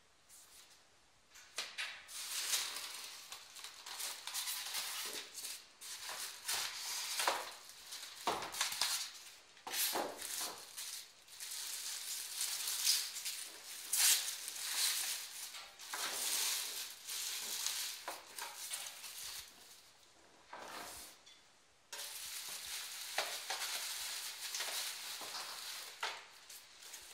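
Clear plastic packaging bag and paper wrapping crinkling and rustling as they are handled and pulled off, in irregular handfuls with a short quiet spell a little after two thirds of the way through.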